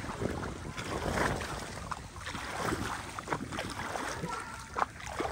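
Wind rumbling on the microphone over shallow seawater, with a few small splashes and sloshes.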